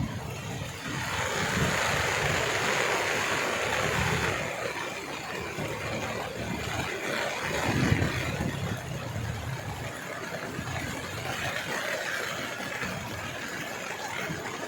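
Vehicle engine noise mixed with a steady rush of water on a flooded street in heavy rain, swelling loudest a second or so in for a few seconds, as of a vehicle pushing through the floodwater.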